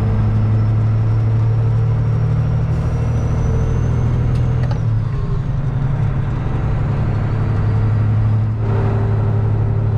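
Semi-truck diesel engine running under way, heard from inside the cab as a steady low drone. Its note changes briefly about five seconds in and again near the end, as the driver works the 13-speed manual gearbox.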